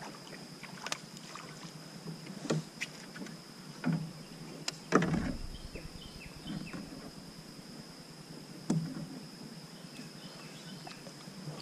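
Scattered small knocks and clicks of gear and handling on a plastic fishing kayak, with one louder thump about five seconds in. A faint steady high tone runs underneath.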